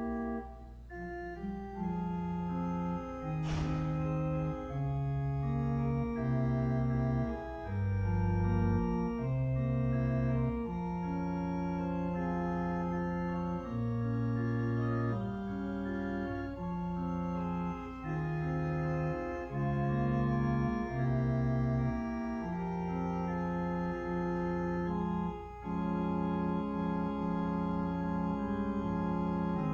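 Church organ playing a slow, quiet piece in held chords, the notes changing about every second.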